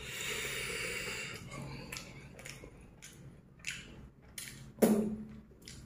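A man eating fried chicken: a long breath out through the mouth, then soft chewing with small mouth clicks, and a short hum about five seconds in.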